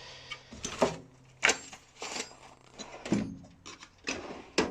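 A metal tool chest's drawers being worked and tools handled: a string of sharp knocks and clicks with light rattling between.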